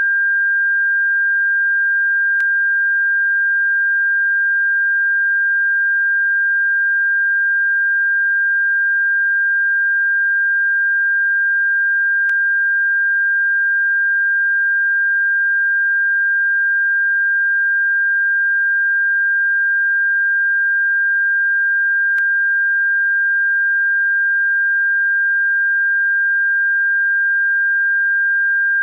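Steady electronic pure tone at a constant pitch of about 1.5 kHz, played as a bird-repellent frequency. A very faint click comes about every ten seconds.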